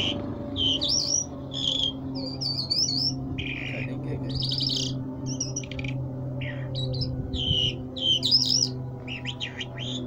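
Caged Irani jal songbird singing a run of short, varied phrases: chirps, quick trills and rising-and-falling whistles, one after another with brief gaps, the loudest phrase near the end. A steady low hum runs underneath.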